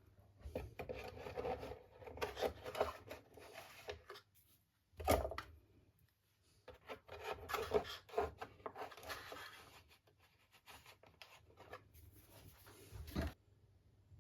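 Small wooden model-kit parts being handled and pushed into place, with irregular rubbing and scraping in short spells and a sharp knock about five seconds in and another near the end.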